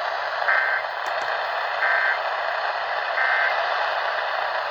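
Three short, buzzy data bursts of an Emergency Alert System SAME end-of-message code, each about a third of a second long and a second apart, over steady radio static hiss.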